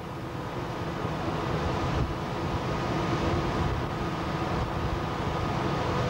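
Steady rumble and rush of an inter-island car ferry under way, heard out on deck: the ship's engine drone with a faint steady hum, and wind buffeting the microphone.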